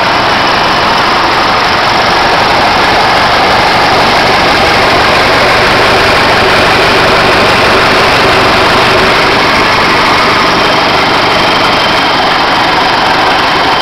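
An engine running steadily at idle, loud and unchanging.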